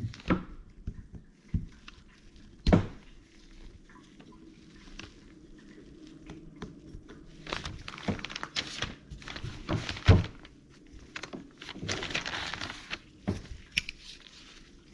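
Hand tools working at a metal CV boot clamp on a drive axle: a few sharp knocks and clanks, the loudest about ten seconds in, with a stretch of scraping and rustling in the second half as the clamp is pried at.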